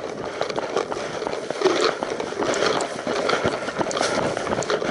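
A player moving on foot through dry scrub: crunching footsteps and rustling close to the microphone, with many scattered sharp clicks.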